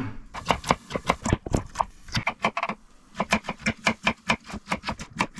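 Kitchen knife chopping carrots on a wooden cutting board: quick sharp knocks of the blade on the wood, uneven at first, then a fast even run of about four or five a second after a short pause about halfway through.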